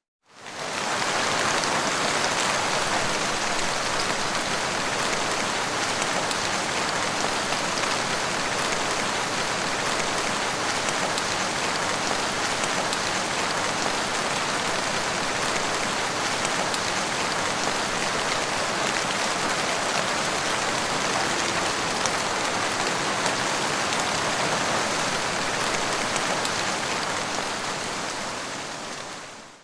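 Heavy rain pattering steadily on a car windshield, with faint individual drop ticks through it. It fades in at the start and fades out at the end.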